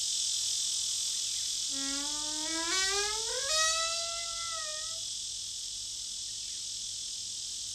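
Steady, high cricket-like chirring. About two seconds in, a pitched tone joins it, glides upward, levels off and fades out around five seconds.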